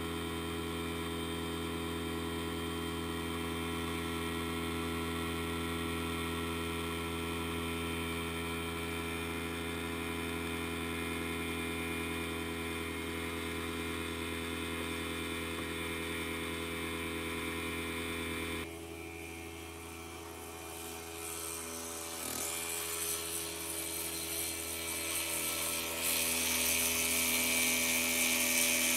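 Small 1 hp two-stroke outboard, built from a string-trimmer engine, running at a steady throttle, heard close up from on board. After a sudden cut it is heard from the bank, fainter and mixed with river and air noise, growing louder as the boat comes nearer.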